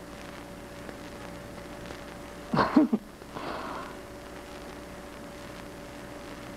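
A woman's short, embarrassed laugh about two and a half seconds in, followed by a breathy exhale, over a faint steady hum.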